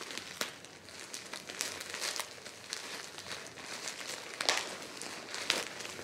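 Packaging crinkling and crackling in scattered rustles as a heavy mail package is worked open by hand, with a louder crackle about four and a half seconds in.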